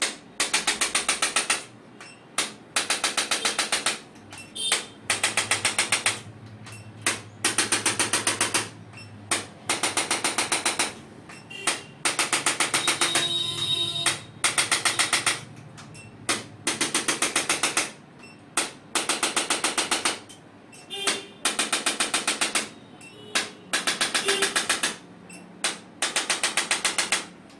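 Electric chiropractic adjusting gun firing in repeated bursts of rapid clicking impulses, each burst about a second long with short pauses between.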